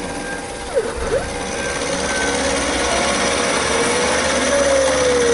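Taig CNC micro mill cutting gray cast iron with a 3/16-inch carbide end mill: the spindle runs with a steady cutting noise while the axis drive motors whine, their pitch sliding up and down as the table traces the radius. About a second in the whine dips sharply and climbs back, and near the end a long tone falls slowly.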